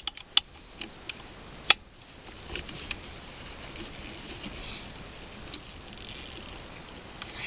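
A few sharp metallic clicks and clinks of a hand wrench working a bolt, the loudest about two seconds in, over a faint steady background with a thin high-pitched tone.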